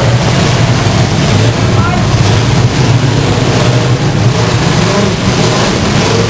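Many demolition derby cars' engines running and revving together, loud, with a steady low drone.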